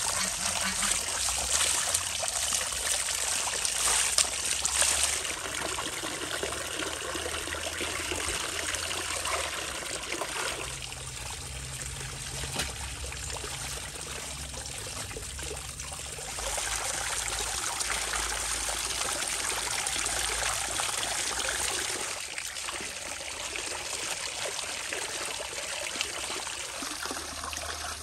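Water pouring from a stone spout into a filled enamel basin, splashing as hands wash in the stream. It runs steadily, its loudness shifting several times.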